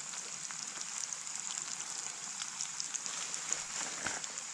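Potato fries deep-frying in hot oil: a steady sizzle with many small crackles.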